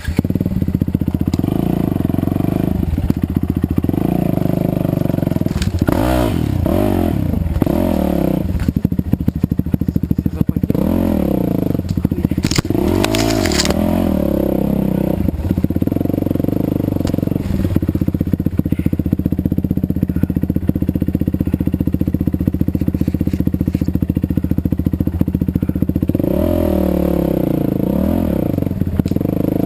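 Yamaha WR 450F single-cylinder four-stroke engine running, freshly rebuilt with a welded crankcase and new piston and rings; the revs rise and fall several times, about six, eleven, thirteen and twenty-seven seconds in.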